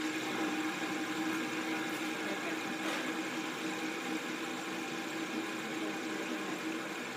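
Fidget spinner spinning flat on a wooden tabletop, giving a steady whirring hum, with a few faint ticks in the first few seconds.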